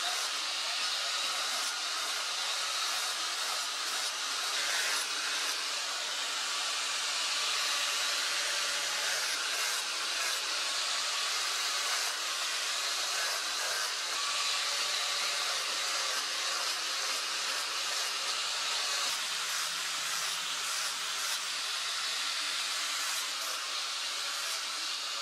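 Angle grinder with an abrasive disc grinding a forged steel spear blade: a continuous high grinding hiss over a faint steady motor whine.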